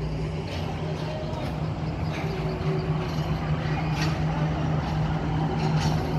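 Heavy vehicle engine, a bus or army truck, running with a steady low drone, with faint distant voices and two brief hisses.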